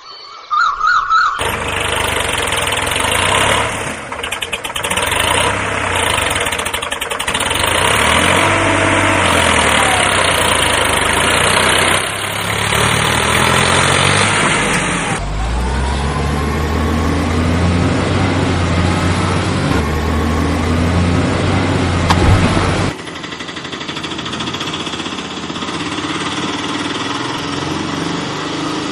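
Heavy vehicle engine sound effects, an engine running and revving laid over toy vehicles that have no engines of their own. The sound changes abruptly about 1.5, 15 and 23 seconds in, as one engine recording cuts to the next.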